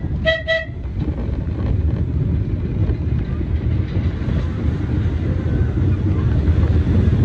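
Subway train running on the rails with a steady low rumble as another train passes close alongside. A short horn toot sounds about half a second in.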